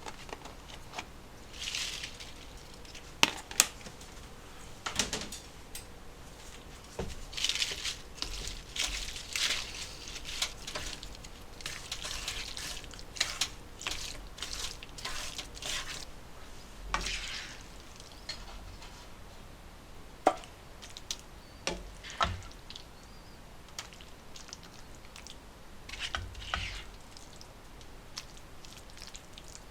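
Irregular clinks, taps and short scraping sounds of kitchen utensils and dishes being handled, with a few sharper knocks scattered through.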